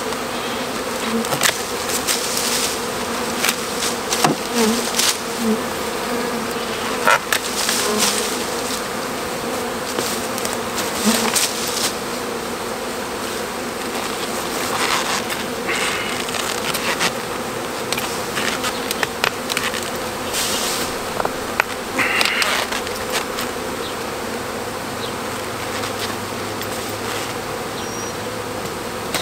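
Loud, steady buzzing of a honeybee swarm disturbed from its cluster on a tree, with sharp snaps and rustles of loppers cutting through leafy branches scattered through it.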